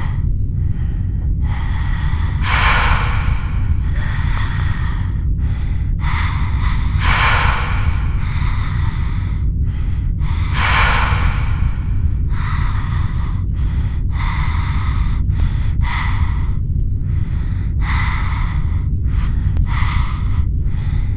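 Rapid, heavy human breathing, about two breaths a second, with three longer, louder breaths, over a steady low rumble.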